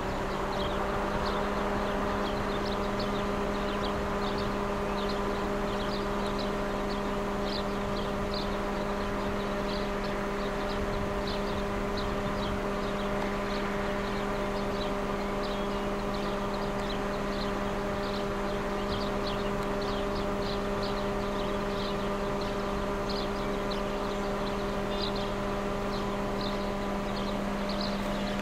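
A siren winding up and then holding one steady pitch without rising or falling, with many quick high chirps scattered over it.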